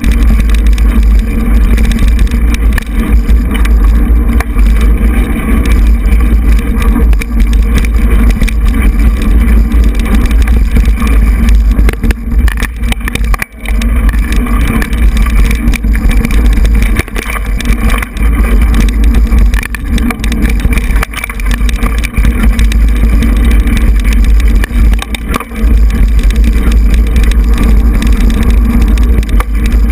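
Steady, loud rumble of air buffeting a handlebar-mounted GoPro's microphone, mixed with tyre and frame rattle, as a mountain bike rolls along a dirt singletrack. It dips briefly a little before the middle and again later on.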